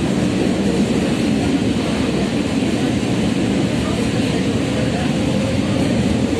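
Tatra KT3UA tram running at speed, heard from inside the passenger car: a steady, even noise of wheels on rails and running gear.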